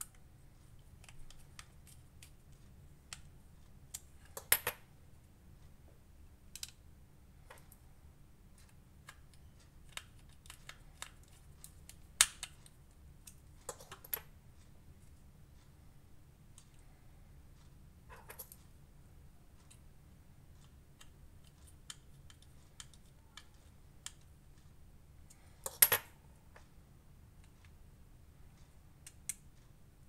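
Scattered small clicks and taps of a precision screwdriver and screws against the handle of an OTF knife as its handle screws are driven in. The sharpest clicks come about 4, 12 and 26 seconds in.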